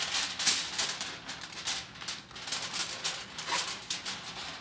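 Aluminum foil crinkling in quick, irregular crackles as it is folded and pressed around a slab of baby back ribs to double-wrap them.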